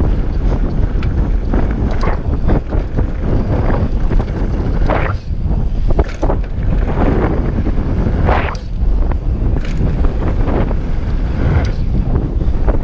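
Wind buffeting the action camera's microphone on a Scott Voltage 720 downhill mountain bike riding fast down a dirt trail, over a steady rumble of the tyres. Short knocks and rattles come through as the bike hits bumps, the strongest about five and eight seconds in.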